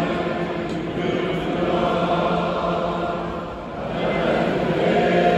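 Stadium crowd of football supporters singing a chant in unison, a great many voices together. The singing sags a little past halfway and then swells again.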